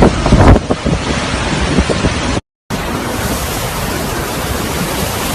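Hurricane-force wind blasting over the microphone in heavy gusts, cutting out for a moment about halfway through before the same loud wind noise picks up again.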